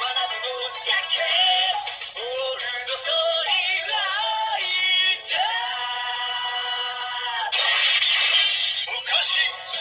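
Kamen Rider DX toy playing its electronic sound effect for a three-book Wonder Ride Book combination: a synthesized Japanese classical-style sung chant over music, with one long held note in the middle and a noisier burst about eight seconds in.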